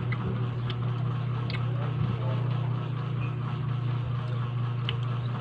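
Steady low machine hum, unbroken throughout, with a few faint light ticks.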